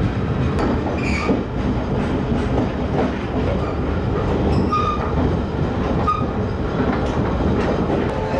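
Rumble of an old passenger coach riding the rails, with wheels clicking over rail joints. There are a few short high squeals from the wheels, about a second in and again near five and six seconds.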